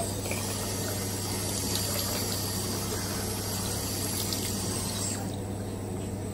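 A tap running steadily into a bathroom sink, shutting off about five seconds in, over a steady low hum.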